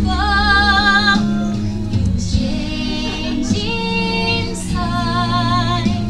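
A woman singing a slow song solo, holding long notes with a wavering vibrato, with short breaths between phrases.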